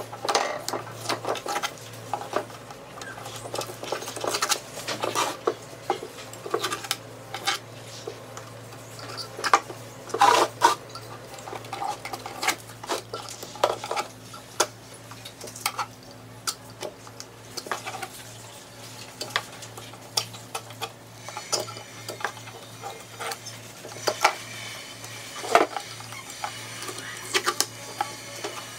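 Hand scraper with a metal blade scraping the old black finish off an MDF speaker cabinet's top panel, in short, irregular strokes.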